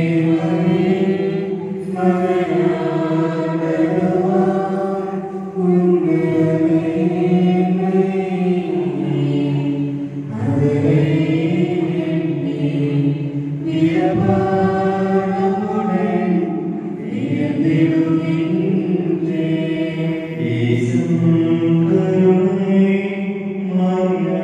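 Devotional hymn sung as a chant, in long held phrases with brief pauses between them.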